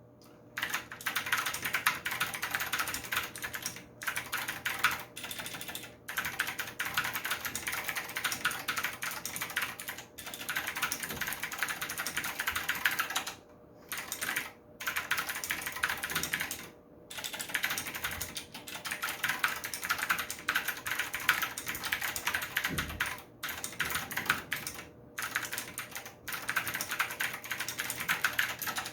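Fast typing on a Maxtill TRON G510K V2 mechanical keyboard fitted with MAXKEY SA profile keycaps: dense runs of keystroke clacks, broken every few seconds by short pauses.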